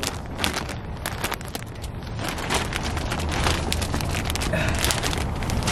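Crackling, rustling and light knocks of shopping items and packaging being handled, over a steady low rumble.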